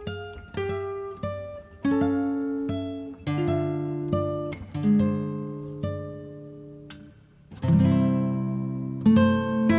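Background music on a plucked acoustic guitar: a slow line of single ringing notes, then a fuller, louder strummed chord about three-quarters of the way through.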